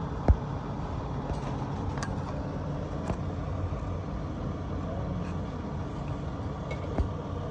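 Steady low hum with a sharp knock just after the start and another near the end, and a few fainter clicks between.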